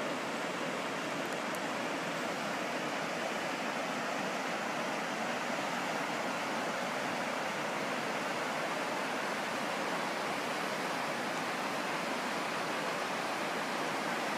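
The River Enza in full flood: the steady, even rush of fast muddy floodwater.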